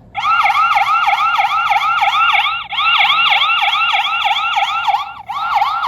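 PLACUY 2K wireless video doorbell's built-in anti-theft siren sounding, set off by the released tamper button on its back: a loud electronic warbling alarm sweeping up and down about four times a second, breaking off briefly twice. It is the tamper alarm that signals the doorbell is being pulled off its mount.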